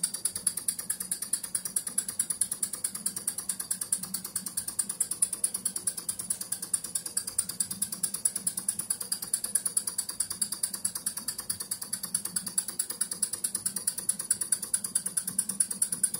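PM Research No. 4 vertical model steam engine running steadily, beating out a fast, even mechanical rhythm.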